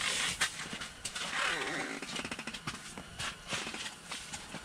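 Nylon jacket fabric rustling and rubbing against the microphone, with scattered clicks and knocks of handling, and a brief faint voice about one and a half seconds in.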